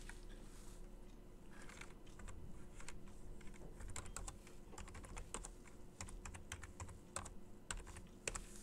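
Typing on a computer keyboard: faint, irregular key clicks, coming thickest in the second half.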